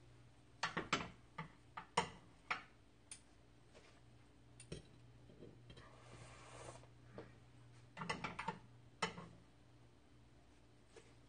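Metal utensils clinking and scraping: chopsticks against a frying pan and a fork and spoon against a serving plate, in scattered clusters of sharp clicks over a low steady hum.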